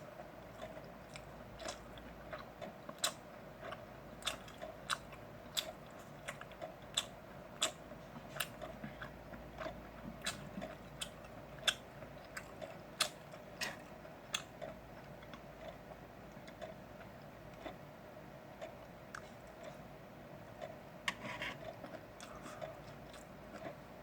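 Close-up chewing of grilled pork belly: a run of irregular short, wet mouth clicks that thin out in the second half, over a faint steady hum.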